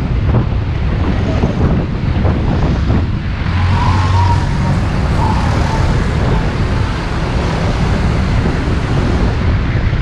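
Wind rushing over the microphone of a motorcycle-mounted camera while riding, with a steady low rumble of the bike and road underneath. A brief faint higher tone comes through about four seconds in.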